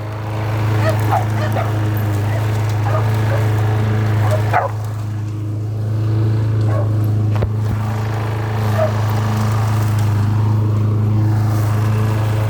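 Lawnmower engine running steadily while a dog gives short barks and yips, several times over.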